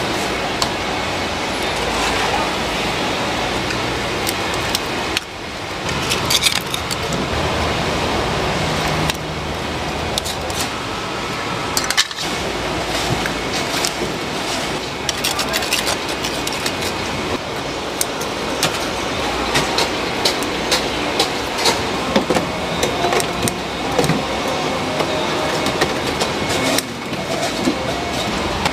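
Busy market-stall background noise: a steady rumble with indistinct voices and frequent small clicks and clinks, changing abruptly a few times.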